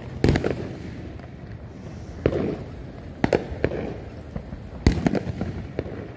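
Fireworks bursting: about half a dozen sharp bangs at irregular intervals, several trailing off in a rolling echo, the loudest near the start and about five seconds in.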